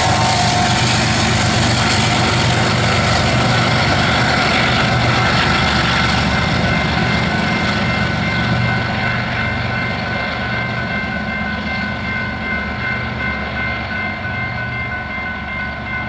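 Trailing distributed-power diesel locomotive at the rear of a freight train rumbling past and away, the engine and rail noise slowly fading as the train recedes. From about six seconds in, a few steady high ringing tones stand out more clearly.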